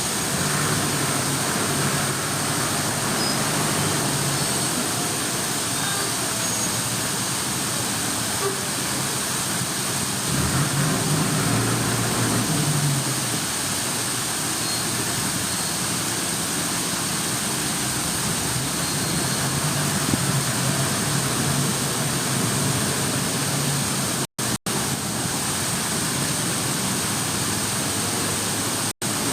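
Running water: a steady, even rush. A low hum rises under it for a few seconds about ten seconds in, and the sound cuts out for a moment twice near the end.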